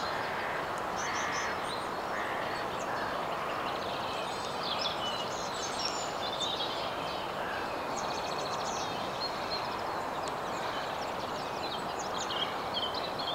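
Small birds chirping and trilling, with many short high calls scattered throughout, over a steady background hiss.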